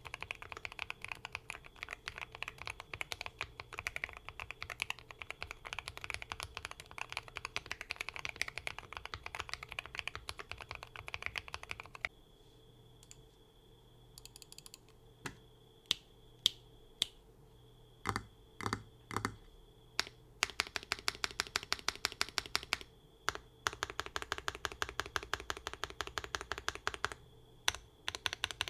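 Typing on a Bridge75 mechanical keyboard with hand-lubed Princess linear switches, lubed stabilizers, a PC plate, tape mod and full foam: fast, dense keystrokes. About twelve seconds in the typing stops, a few slow single key presses follow, and fast typing resumes about twenty seconds in.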